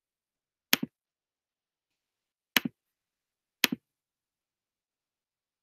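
Three sharp computer mouse clicks, each a quick press-and-release double, a second or two apart, with dead silence between them.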